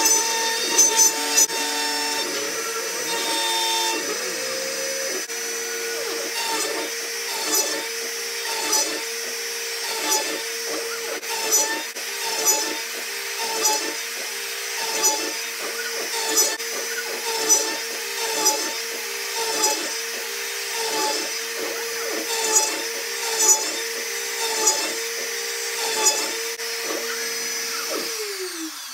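Bosch router on a CNC machine running at high speed, its bit cutting through plywood. The steady whine dips briefly and the cutting noise swells about once a second.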